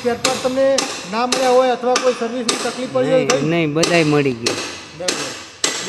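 Hammer striking metal in repeated sharp, ringing blows, roughly two a second, during repair work on a power weeder. Men's voices talk underneath.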